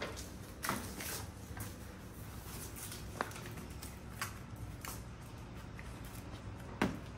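Paper instruction leaflet being taken out and unfolded by hand: a series of short paper crackles and rustles, about half a dozen, the sharpest near the end.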